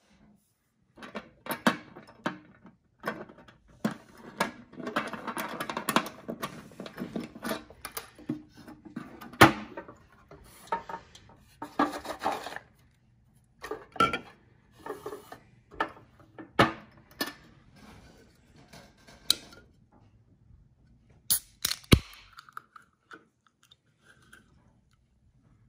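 Handling noises: a small key and padlock worked by hand, then a wooden chest rummaged through, with scattered clicks, knocks and a stretch of rustling. Near the end, a few sharp clicks as a soda can's tab is pulled open.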